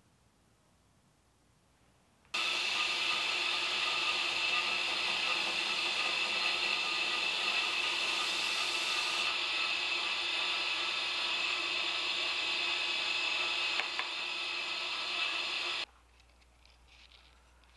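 Belt grinder grinding the bevels of a laminated steel knife blade: a steady grinding hiss and whine over the running motor. It starts suddenly a couple of seconds in and cuts off near the end.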